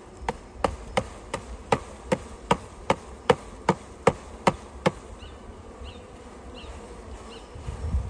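A plastic bee package box (bee bus) is rapped by hand about thirteen times in an even rhythm, roughly two and a half knocks a second, stopping about five seconds in. The knocking shakes the remaining honey bees out onto the hive frames. The bees keep buzzing throughout, with a low thump near the end.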